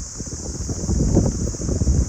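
Wind gusting through trees, with wind buffeting the microphone as an uneven low rumble that rises and falls, over a steady high hiss.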